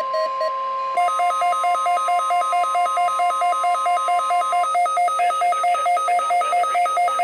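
Synthesized emergency-alert alarm tones: a steady low tone held under a fast pulsing beep, about five beeps a second, that comes in about a second in; a higher steady tone drops out a little past the middle.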